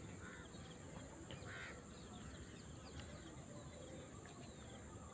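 Faint outdoor ambience of birds calling, with many small chirps and two short, louder calls about a third of a second and a second and a half in, over a steady high hiss.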